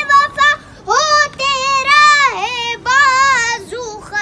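A young boy singing a noha (Urdu lament), solo and unaccompanied, in long held phrases that bend in pitch and are broken by short pauses.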